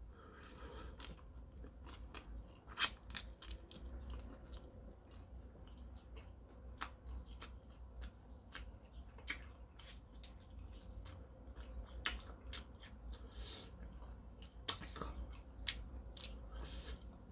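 Close-up chewing, then a large cooked shrimp's shell being peeled by hand: irregular sharp crackles and snaps as the shell cracks and tears away.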